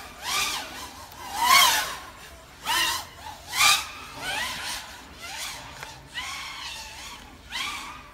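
FPV racing drone's electric motors and propellers whining as it flies hard, the pitch swelling up and falling away again in repeated passes about once a second.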